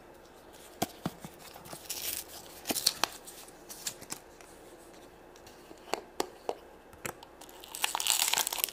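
Small plastic Shopkins Chef Club jar being handled and opened: scattered clicks and taps of hard plastic, with rustling and crinkling of the packaging inside, densest near the end.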